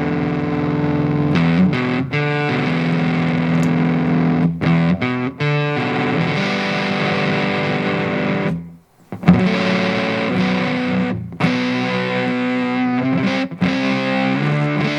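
Electric guitar played through a transistor fuzz pedal: thick, distorted chords and notes let ring, with changes every second or few. The playing stops for about half a second a little past the middle, then starts again with a strong attack.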